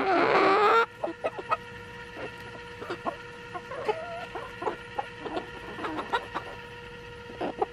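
Backyard hens and roosters clucking while they feed on treats, with many short clucks throughout. One loud call sounds right at the start and lasts under a second, and a shorter rising call comes about four seconds in.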